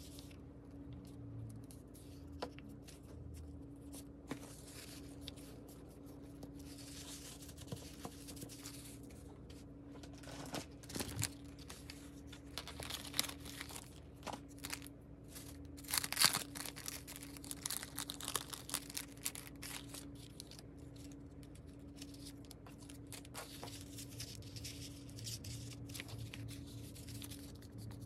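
Paper rustling and crinkling in irregular bursts as sheets of craft paper are handled and pressed down onto a small handmade notebook, with a busier stretch of rustling a little past halfway. The footage runs at double speed.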